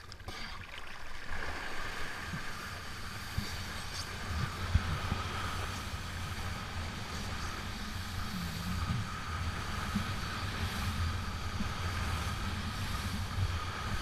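Wind buffeting the microphone in a steady low rumble, over water rushing and splashing past a moving kiteboard.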